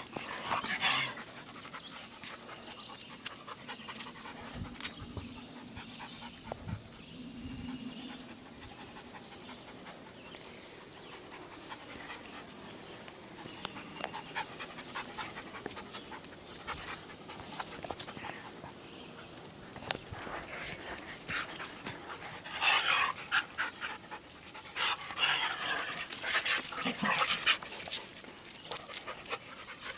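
Large dog panting, soft at first and much louder in quick runs of breaths during the last several seconds.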